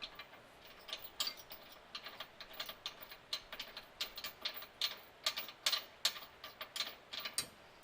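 Many sharp, irregular metal clicks from hand tools and Allen bolts being worked into the rear subframe brace.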